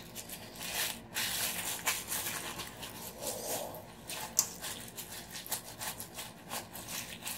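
Thin disposable plastic gloves crinkling and rustling as they are pulled onto the hands and smoothed over the fingers, in quick irregular crackles.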